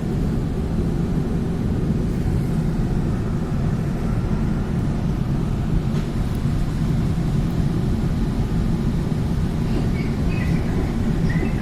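A train running with a steady low rumble.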